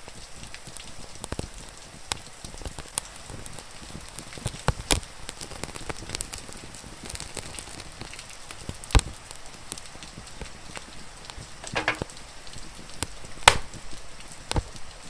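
Wood fire crackling, with scattered sharp pops (the loudest about nine seconds in and near the end), over a steady hiss of rain.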